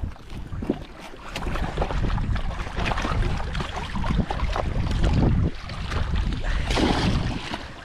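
Water splashing as hybrid striped bass on a rope stringer thrash in the shallows at a rocky bank, with wind rumbling on the microphone.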